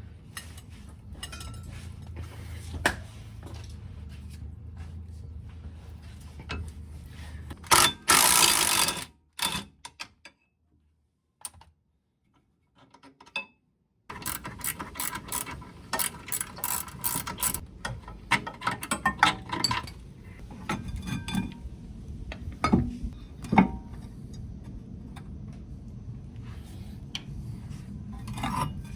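Ratchet wrench clicking in runs while working on the car's rear brake, mixed with metal clanks and knocks of tools and brake parts. A short loud rush of noise comes about eight seconds in, followed by a few seconds of silence.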